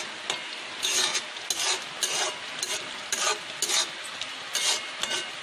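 A metal spoon scrapes around a metal kadhai in quick repeated strokes, stirring thick semolina upma over a steady low hiss. The upma is thickening as the semolina soaks up the last of the water.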